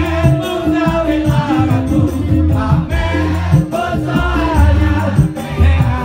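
Live band music played loud through a PA system, with a male singer's voice on microphone over heavy bass notes.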